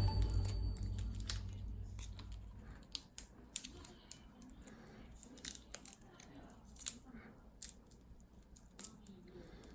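Background music cuts off at the start, then scattered light clicks and taps of kitchen utensils handling food, about a dozen, spread unevenly.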